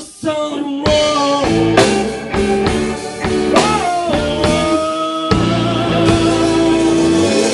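Live rock band playing loud: electric guitar and drum kit under a lead line of long held notes, one bending up and down about three and a half seconds in, and a long held note with a slight waver near the end.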